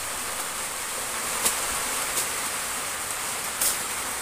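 Steady, high-pitched insect buzz, with a few sharp clicks about one and a half, two and three and a half seconds in.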